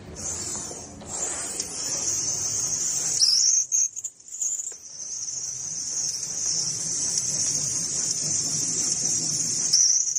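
Steady high-pitched screeching, a hissy whine, that falters and breaks up about three to five seconds in before resuming.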